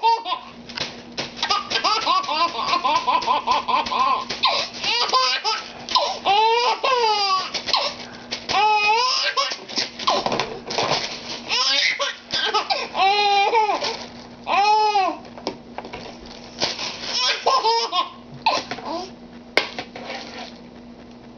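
A baby laughing hard, in repeated bursts of high-pitched laughter with short pauses between.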